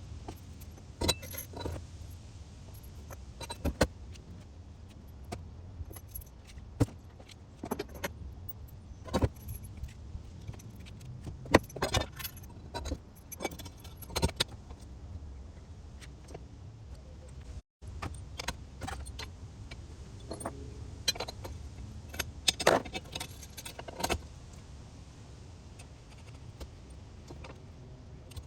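Steel bolts and stacked washers clinking and rattling as they are handled and fitted: irregular sharp metallic clicks over a steady low rumble.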